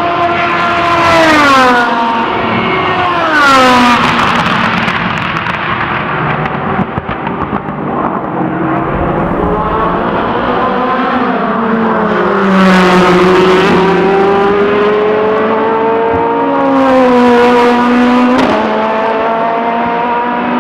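Gibson GL458 4.5-litre V8 racing engine of a Rebellion R-13 LMP1 prototype, passing at speed several times. The pitch drops in steps as it brakes and downshifts, then climbs again through the gears as it accelerates, with a sharp jump in pitch at a gearshift near the end.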